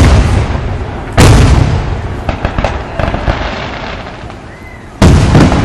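Aerial fireworks bursting: a loud boom right at the start, another about a second in, and a third near the end, each trailing off slowly, with a run of sharp crackles in between.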